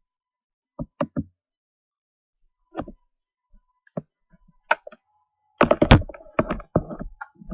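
A scatter of sharp knocks and clicks: three close together about a second in, single ones spread over the next few seconds, then a louder, rapid cluster of knocks and clatter from about five and a half seconds in.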